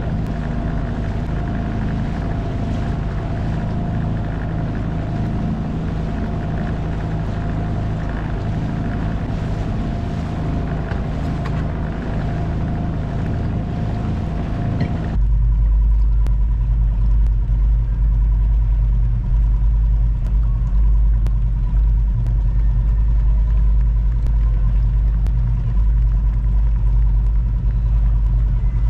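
Small 2.5 hp outboard motor running steadily, pushing a kayak. About halfway through the sound changes suddenly, becoming louder and deeper.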